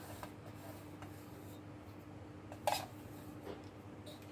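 Fingers scraping grated cheese off a steel plate into a bowl: a faint rubbing, with one short sharp tap of the plate a little past halfway, over a low steady hum.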